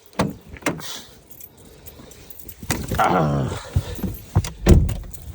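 Car keys jangling among clicks and knocks of handling, with a heavy low thump near the end.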